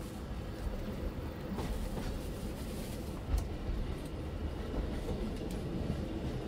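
Running sound inside a BLS train's passenger coach: a steady low rumble of wheels on rail, with a few sharp clicks from the track, the loudest a little over three seconds in.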